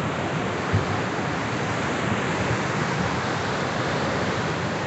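Rushing floodwater of a muddy, swollen river in spate, a steady noise without let-up, with a brief low bump about a second in.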